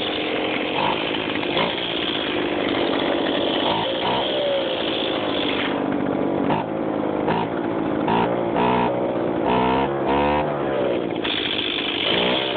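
Roughly 30-year-old Echo handheld two-stroke leaf blower running just after a cold start. It runs fast with a loud rush of air, drops to a lower, wavering idle about six seconds in, and speeds back up about a second before the end.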